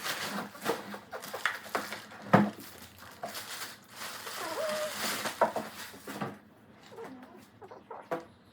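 Packaging being unwrapped and handled: plastic and paper crinkling with repeated knocks and taps, dying down about six seconds in, then a few light taps. A brief high voice-like sound about halfway through.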